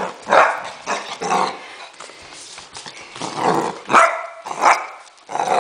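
An 11-week-old basset hound puppy barking in a run of short, loud barks, a few together, a brief lull, then several more in quick succession.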